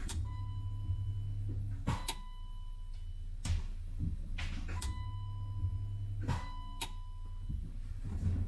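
Fuel pump relay clicking on and off about six times as the ignition is cycled, with the new Rally Road 450 lph fuel pump giving a faint steady hum and whine in some of the gaps between clicks. The clicking shows the relay kit is switching the pump and working.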